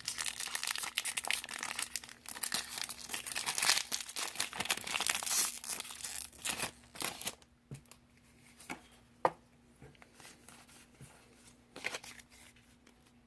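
Foil wrapper of a Pokémon trading-card booster pack being torn open and crinkled for about seven seconds, followed by a few faint light clicks.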